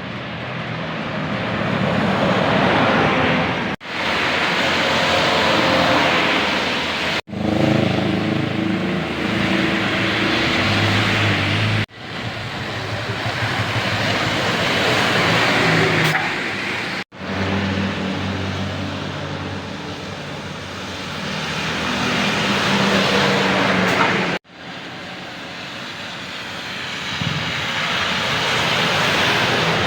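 Large buses passing on a road one after another, engine and tyre noise swelling as each comes closer, then cutting off abruptly about six times.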